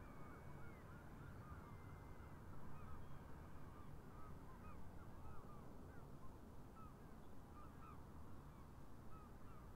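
Faint, distant flock of geese calling: many short, overlapping honks all the way through, over a low steady rumble.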